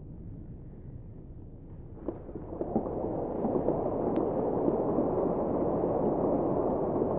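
Audience applause. It starts with a few separate claps about two seconds in, swells into dense, steady clapping, and greets an award being handed over.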